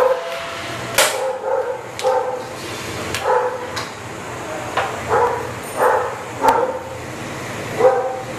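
A dog barking repeatedly, roughly once a second, with a few sharp knocks among the barks.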